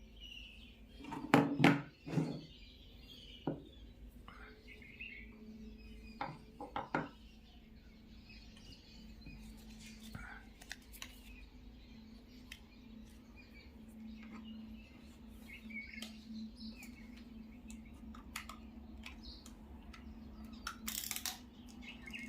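Knocks and clinks of small hard parts being handled, loudest about a second or two in, over a steady low hum, with birds chirping faintly.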